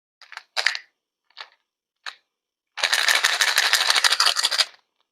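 A few short clicks and taps, then about two seconds of dense, rapid rattling clatter of small hard objects.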